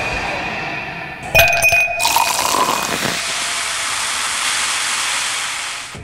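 An aluminium Pepsi can pulled open close to a microphone, giving a sharp crack and hiss about a second and a half in. A steady fizzing hiss of the carbonated cola follows and dies away near the end.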